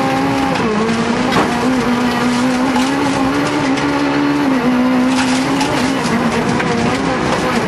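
Rally car engine running hard at high revs, heard from inside the cockpit. The note holds fairly steady with brief dips as the driver lifts or shifts, over heavy road and wind noise, with a couple of sharp clicks.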